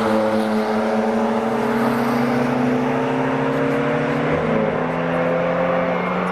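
A car's engine running hard, its note sinking slowly, with a small change in the note about four seconds in.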